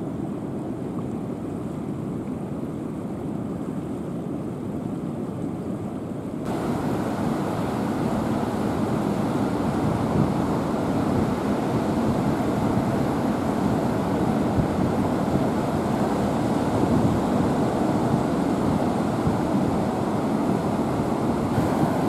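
Ocean surf washing in over a rocky shore, with wind on the microphone: a steady rushing noise that turns suddenly louder and brighter about six seconds in.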